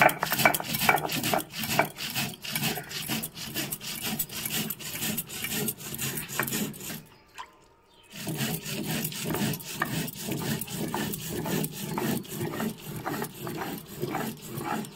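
Stone roller grinding cumin seeds on a flat grinding stone (shil-nora): a rhythmic rasping scrape, about three strokes a second. It stops briefly about seven seconds in, then resumes at the same pace.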